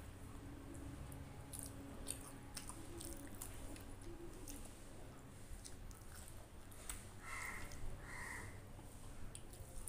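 Close-up wet chewing and mouth smacks of someone eating rice and curry by hand, with many small clicks. Two short squeaks near the end, over a steady low hum.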